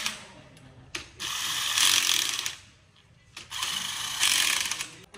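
Workshop tool working on metal in two bursts of about a second and a half each, with short pauses between.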